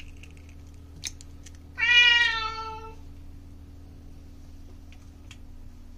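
Domestic cat meowing once: a single long call about two seconds in, dipping slightly in pitch as it ends. Under it, a steady low hum and a few light clicks as an egg is cracked into a glass bowl.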